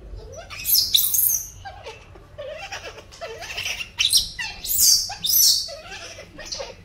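Baby macaque giving shrill, squealing cries over and over, loudest about a second in and again from about four to five and a half seconds in.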